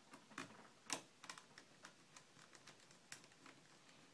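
Light, irregular clicks and taps of small plastic and metal parts being handled at the top of a laptop's screen frame during reassembly, the loudest tap about a second in.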